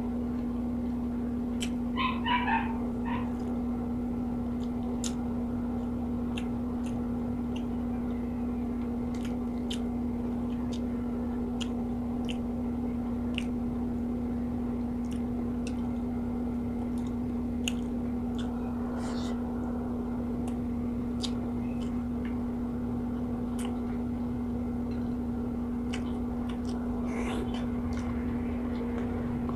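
Eating sounds: soft chewing and small mouth clicks over a steady low hum, with a cat meowing briefly about two seconds in.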